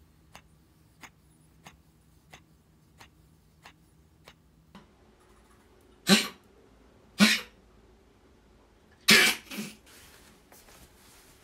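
Mixed-breed dog with a cold coughing hard: three harsh hacking coughs a second or two apart, the last followed by two smaller hacks, as it brings up foamy phlegm. The owner suspects bronchitis.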